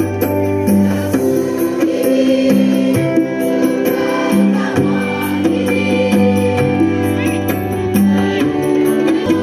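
Large mass choir of students singing an Indonesian patriotic song in long held notes, changing pitch every second or so.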